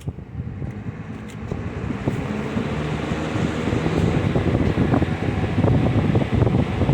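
Box fan switched to its high setting: a click at the start, then the motor and blades speeding up, the rush of air growing steadily louder.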